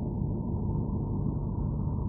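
Low, steady rumbling drone with faint steady tones in it: a Voyager spacecraft recording of Saturn's rings converted into sound.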